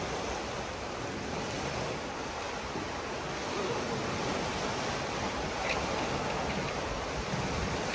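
Sea surf washing up a pebble beach in a steady rush, with a few faint ticks.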